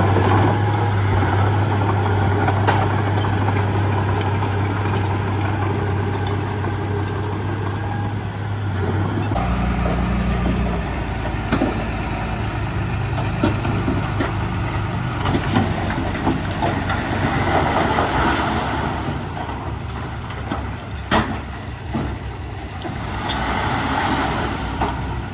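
Heavy diesel engine of a dump truck or bulldozer running steadily. About nine seconds in, the engine note changes abruptly to a different, lower rumble, with a few sharp knocks and short hisses later on.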